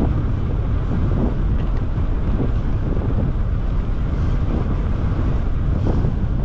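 Wind buffeting the microphone of a moving bike: a steady low rumble.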